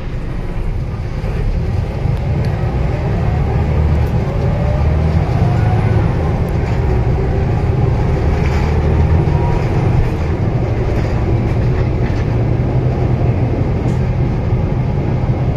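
Interior sound of a Scania L94UB city bus pulling away and gathering speed: a deep, steady engine and drivetrain rumble that grows louder about a second in, with a faint whine rising in pitch as the bus accelerates.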